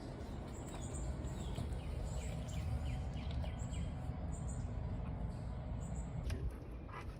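Small birds chirping faintly in short, high, repeated calls, some falling in pitch, over a low steady background rumble.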